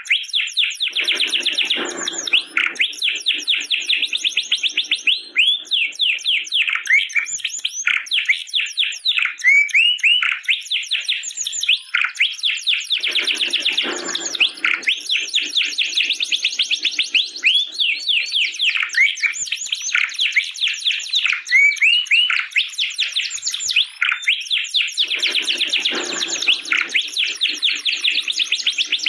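Domestic canary singing a long, unbroken song of fast rolling trills made of rapidly repeated upswept notes. About every twelve seconds it drops into a lower-pitched rolling phrase for a second or two.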